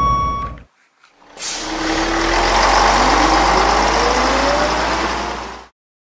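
A vehicle engine running and revving, its pitch climbing steadily for a few seconds, then cutting off suddenly. It starts after a brief gap about a second and a half in.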